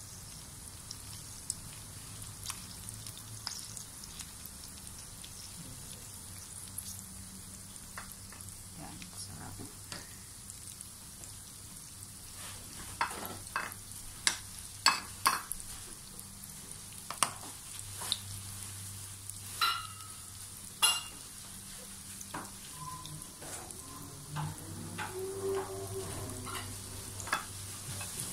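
Mashed sweet potato patties frying in shallow oil in a nonstick pan: a steady sizzle with scattered sharp oil pops that come more often in the second half. A low steady hum runs underneath.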